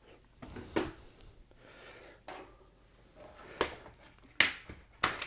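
Objects being handled on a work surface: five or so short, sharp clicks and knocks, the loudest two near the end.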